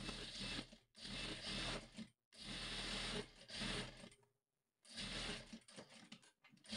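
Industrial single-needle lockstitch sewing machine stitching through gathered ruffle fabric in four short runs, stopping briefly between each one.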